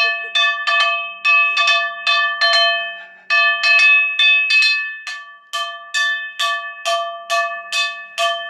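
Metal frying pan beaten with a wooden spatula: a steady run of about twenty loud, ringing clangs, two to three a second.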